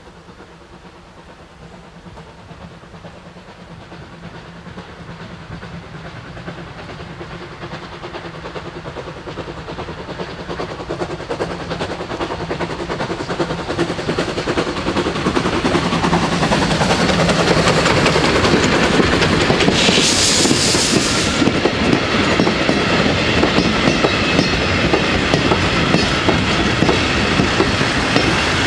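Heritage steam train approaching a level crossing, growing steadily louder for about eighteen seconds, then passing close with its carriages rolling over the rails. A brief loud hiss comes about twenty seconds in.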